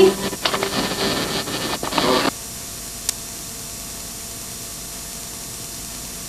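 Camcorder room sound cuts off abruptly about two seconds in, giving way to a steady hiss from a blank stretch of videotape, broken once by a single faint click.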